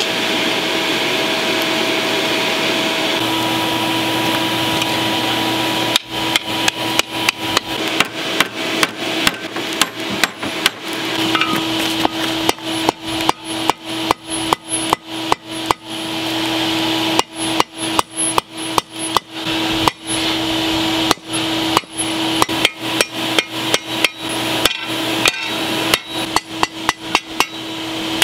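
A blacksmith's hand hammer striking red-hot steel on an anvil, forging a spearhead, about two blows a second in runs with short pauses, starting about six seconds in. Underneath, and alone before the hammering, the steady rushing hum of the coal forge's air blower.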